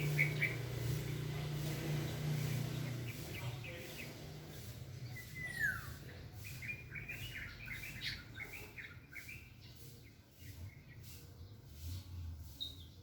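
Small birds chirping and calling: scattered short chirps, one downward-sliding note about five seconds in, then a quick run of chirps shortly after. A low steady rumble underlies the first few seconds.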